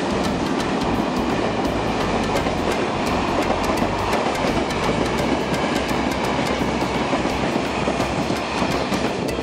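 Freight train of hopper and covered wagons running through the station without stopping: a steady rumble of steel wheels on rail, with rapid clicking as the wheels pass over rail joints.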